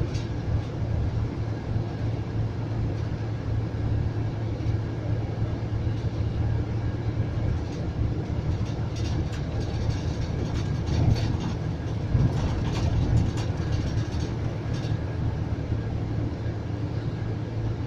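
Steady low drone of a Scania coach under way, engine and road noise heard from inside the passenger cabin, with light clicking and rattling through the middle stretch.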